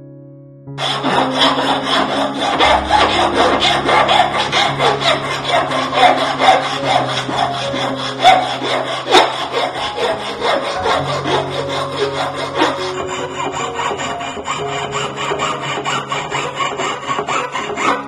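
Flat hand file rasping back and forth across a silver piece held against a wooden bench pin, in quick repeated strokes that start about a second in. Soft background music plays under it.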